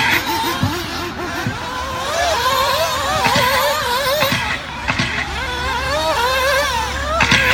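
Several nitro RC buggies' small glow-fuel engines whining, their pitch rising and falling over and over as the cars accelerate and brake around the track, with a few short knocks mixed in.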